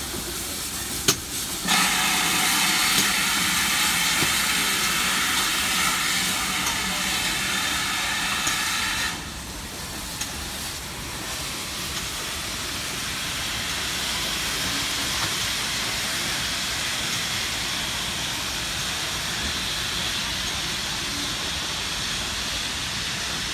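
GWR Manor-class 4-6-0 steam locomotive departing: a loud hiss of escaping steam for about seven seconds, stopping abruptly, then a steadier, quieter rush of steam as the train pulls away.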